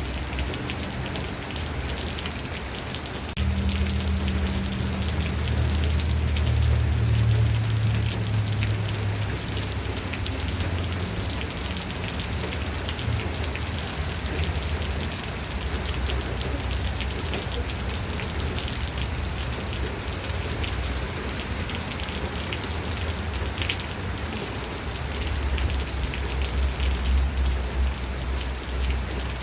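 Steady rain falling on a surface, with many separate drop hits. A low rumble swells in a few seconds in and again near the end.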